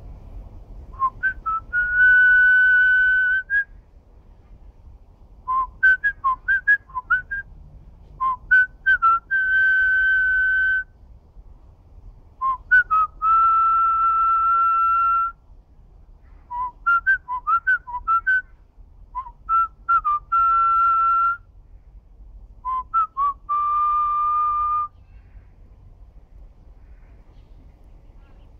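A person whistling a melody by mouth in about seven phrases. Each phrase is a run of quick short notes ending on a long held note, and the phrases stop a few seconds before the end.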